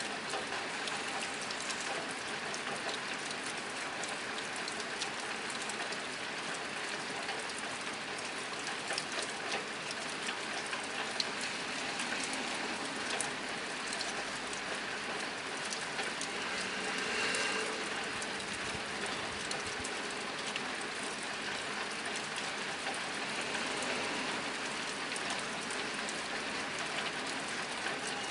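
Steady rain drumming on a nearby tin roof: a dense, even patter of drops.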